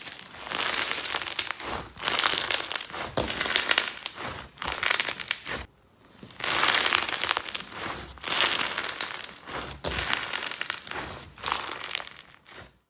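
Slime being squeezed and pressed by hand, crackling and crinkling in repeated bursts, with a short break about six seconds in.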